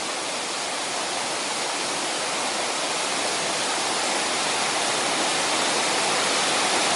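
A waterfall about 6–7 metres high pouring, a steady rushing hiss of falling water that grows gradually louder.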